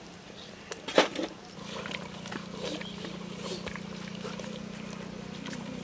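Metal ladle knocking and scraping in a large metal cooking pot of boiling curry, with one sharp knock about a second in and scattered smaller clicks. From about a second and a half in, a steady low hum runs underneath.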